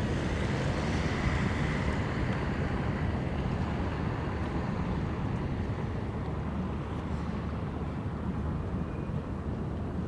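Wind rumbling on the microphone over a steady low drone from a large cruise ship under way, with no distinct events.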